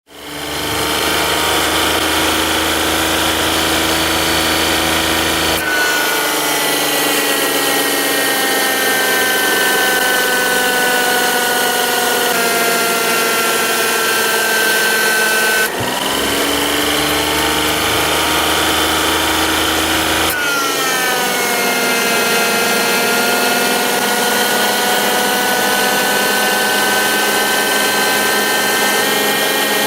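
Car air-conditioning compressor running, a loud steady mechanical whine made of several tones that starts suddenly. Its pitch shifts three times, about 6, 16 and 20 seconds in, with a low hum under it for the first six seconds and again from about 16 to 20 seconds.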